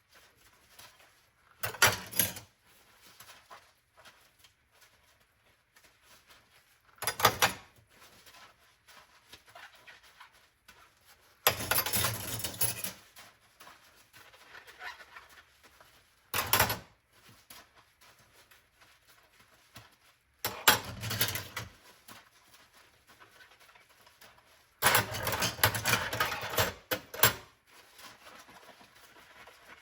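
Dishes being washed by hand at a sink: short spells of clatter and splashing water, each lasting from half a second to a couple of seconds, six times, with quiet gaps between.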